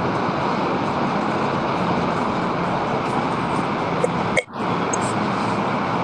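A steady rushing noise like static that cuts in suddenly, drops out for a moment about four and a half seconds in, then carries on.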